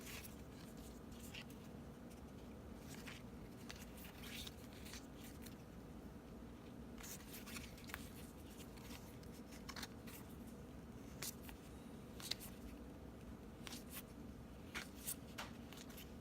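Baseball trading cards being handled and flipped through, faint scattered soft clicks and rustles over a steady low room hum.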